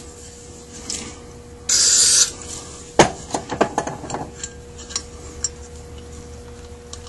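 Small metal parts of an accelerator pump clicking and scraping against a Zenith 28 carburetor body as the plunger assembly is fitted into its well by hand. A brief hiss comes a little under two seconds in, then a sharp click about three seconds in, followed by a run of light taps and ticks.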